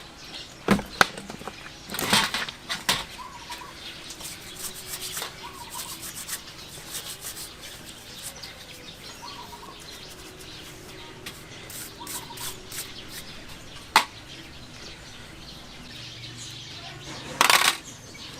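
Motorcycle front fork parts being wiped and handled: rubbing with several sharp knocks and clinks, and a louder short scrape near the end.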